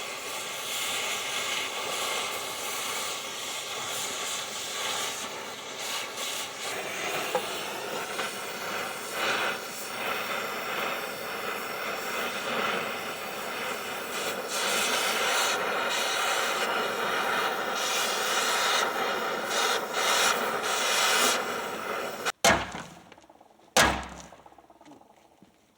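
Oxy-acetylene cutting torch hissing steadily as it cuts through the truck's steel frame, then cutting off suddenly near the end. This is followed by a sharp knock that rings and dies away.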